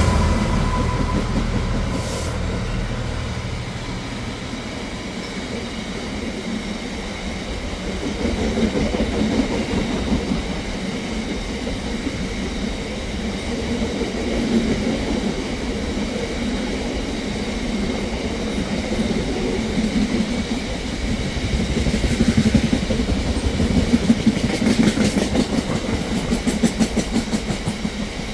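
A train running past on the line, with a steady rumble and a rhythmic clatter of wheels over the rail joints that grows louder near the end.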